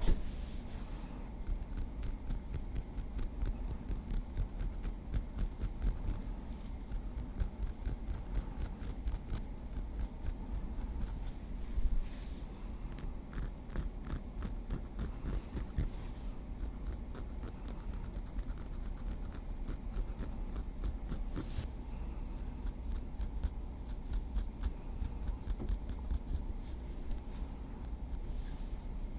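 Small wooden stick tapping and scratching lightly in quick, irregular strokes, with a slightly louder tap about twelve seconds in.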